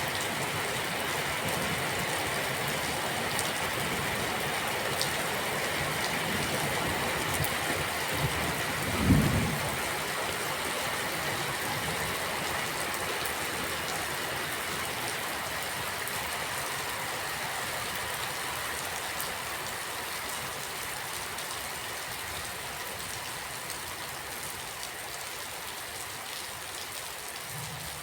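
Steady rain falling, an even hiss throughout, with a single brief low thump about nine seconds in.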